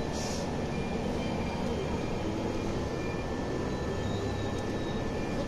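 Interior noise of a Scania OmniLink city bus under way: a steady engine and road rumble, with a brief hiss at the very start.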